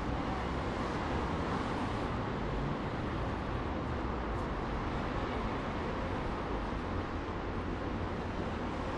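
Heavy city road traffic: a steady, unbroken wash of many vehicles' engines and tyres, deepest in the low end.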